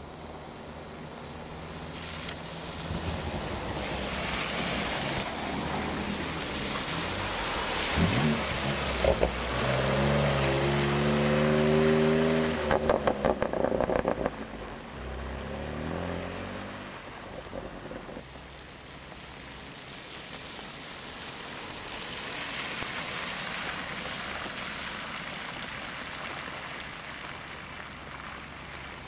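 Cars driving through deep standing water, their tyres hissing and splashing through the flood. About eight seconds in, a BMW M4 accelerates hard with its engine note rising. A rapid string of exhaust crackles and pops follows around thirteen seconds in, the loudest part.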